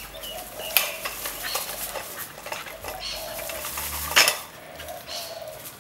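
A child's metal tricycle clattering and rattling as a dog tugs and drags it about, with a series of sharp knocks; the loudest comes about four seconds in.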